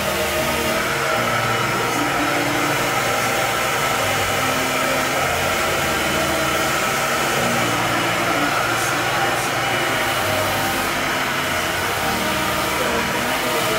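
Handheld hair dryer blowing steadily during a blow-dry, a constant rushing of air and motor.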